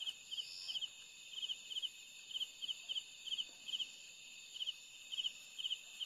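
Crickets chirping at night in short three-pulse chirps, two or three a second, over a steady high insect drone.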